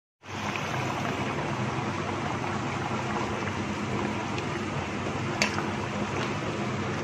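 Pork and potato curry boiling hard in a kadai, a steady bubbling hiss over a low steady hum, with a single sharp tap about five seconds in.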